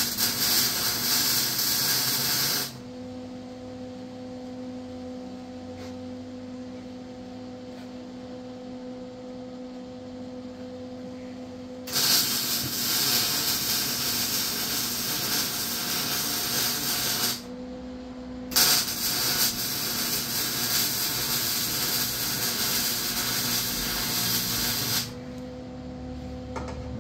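Loud steady hiss that cuts in and out abruptly several times. In the quieter stretches between, a steady low hum carries on.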